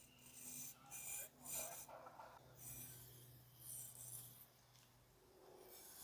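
Knife blade slicing through raw bull testicles on a wooden cutting board: a series of faint, short, wet cutting and rubbing strokes over a faint low hum.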